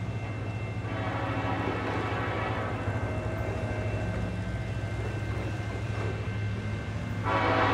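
Diesel freight locomotive's air horn sounding from the approaching train: one long blast about a second in, then a louder blast starting near the end, over the train's steady low rumble.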